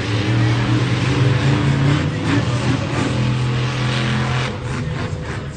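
Monster truck engine running loudly with a steady low drone, which fades away about four and a half seconds in.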